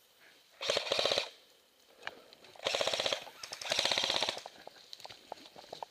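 Airsoft gun firing three short full-auto bursts, each a rapid, even string of sharp clicks lasting under a second, the last two close together.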